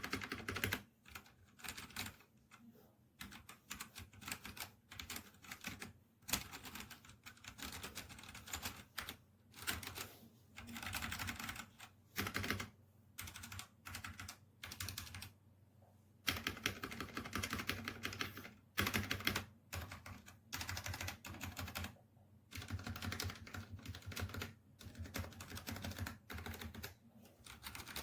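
Typing on a Redragon K617 Fizz 60% hot-swap mechanical keyboard: rapid runs of key clicks in bursts of a second or two, with brief pauses between them.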